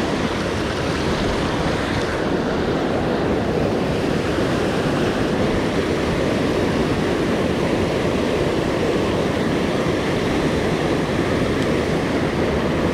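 Mountain stream rushing: a steady, unbroken rush of running water.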